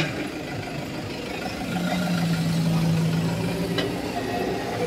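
Minibus engine running close by as the van moves past, a steady low hum amid street traffic.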